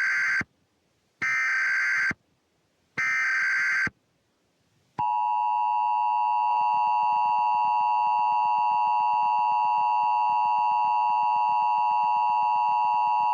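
Emergency Alert System tones: three SAME data-header bursts, each a buzzy two-tone screech just under a second long and about a second apart, the first already underway. About a second after the third comes the EAS attention signal, a steady two-tone beep of 853 and 960 Hz held for about eight seconds that cuts off abruptly near the end.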